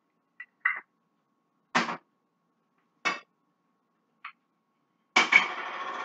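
Cookware and utensils handled at a stove: five short knocks and clinks spread over the first four seconds or so, then a longer noisy sound lasting about a second near the end.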